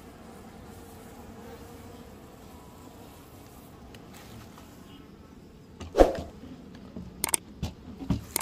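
Asian honeybees humming steadily from an open hive. About six seconds in there is a loud knock, then a few sharper clicks as the hive is covered.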